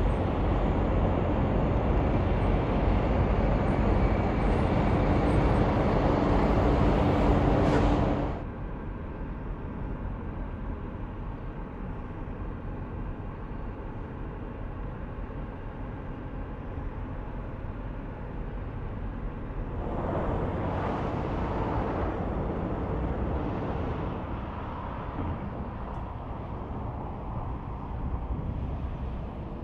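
Big trucks passing on a highway: loud tyre and engine noise that cuts off abruptly about eight seconds in, then quieter steady traffic noise with another vehicle passing about twenty seconds in.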